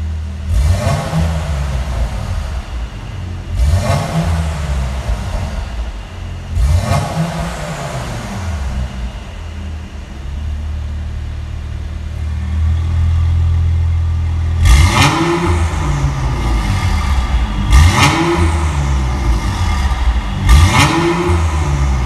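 Mercedes-AMG GLC43 Coupe's twin-turbo V6 through an Armytrix valved exhaust, stationary and blipped three times, each rev rising and falling back over about a second and a half, then idling steadily. About halfway through, the exhaust grows louder and harsher and three more sharp blips follow with the exhaust valves open.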